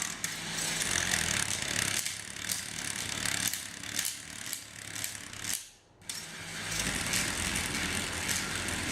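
A Lego 9-volt motor driving a plastic gear train, running with a steady whir and quick ratcheting clicks. It cuts out briefly a little past halfway, then starts again.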